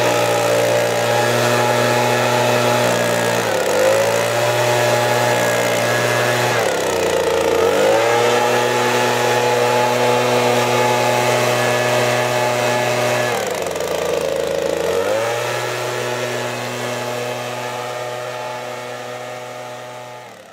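Stihl backpack leaf blower running near full throttle, its engine and fan holding a steady pitch. The throttle is eased off and opened again three times, the pitch dropping and climbing back each time, and the sound fades out toward the end.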